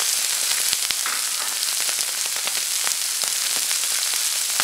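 Cubed liver frying in olive oil on a hot cast-iron tawa: a steady sizzle with many small pops and crackles, the pieces freshly dropped into the hot oil.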